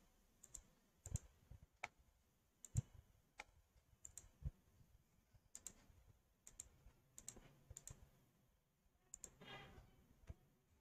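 Near silence with scattered faint, irregular clicks, the strongest about three seconds in, and a brief soft rustle near the end.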